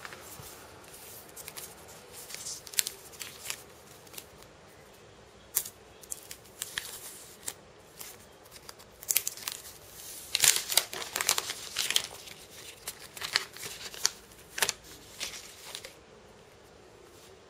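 Clear plastic protective film on a new HTC One M9 smartphone crinkling and scratching as hands turn and rub it. The sound comes as irregular sharp crackles and clicks, busiest and loudest about ten to twelve seconds in, and dies away near the end.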